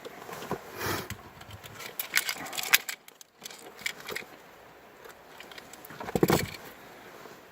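Small fishing tackle clicking and rattling in the hands while the line is being threaded through a bobber and weight, in quick clusters of light clicks. A louder handling rustle or bump comes about six seconds in.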